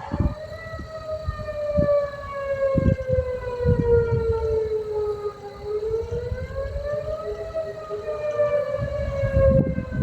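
Outdoor tornado warning siren wailing: one long tone that slowly falls, rises again about halfway through, then falls once more. Low gusty rumbling runs underneath.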